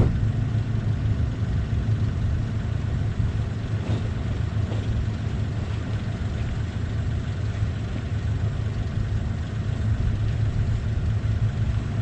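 Car engine running steadily, a low even drone with no change in speed.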